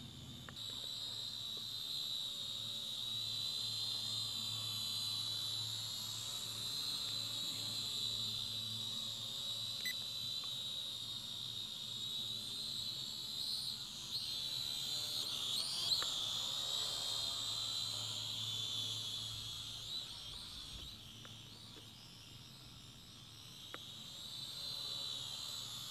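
Syma X5UW quadcopter's four small motors and propellers whining steadily at a high pitch. The whine wavers and rises briefly about halfway through as the drone maneuvers.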